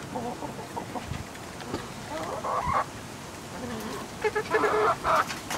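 Domestic hens clucking, with a short call about two and a half seconds in and a longer run of calls about four seconds in.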